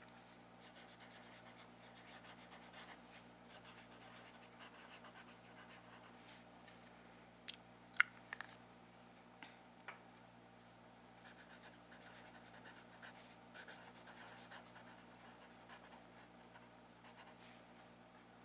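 Wooden pencil writing on a lined paper notepad: faint scratching strokes of handwriting. They pause about halfway, where a handful of sharp clicks, the loudest sounds here, come over about two seconds before the writing resumes.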